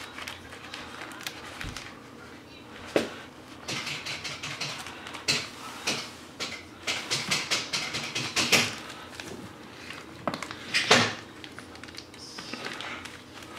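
Cardboard box and its plastic wrapping being handled: crinkly rustling with a few sharp knocks and bumps, the loudest late on.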